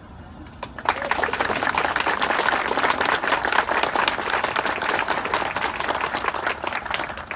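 An outdoor audience applauding, the clapping breaking out about a second in and easing off near the end.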